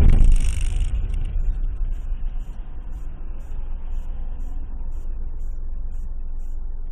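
A car driving along a road, heard from its dashcam: a steady low rumble of engine and tyre noise, louder in the first second. Faint, regular ticking comes about twice a second.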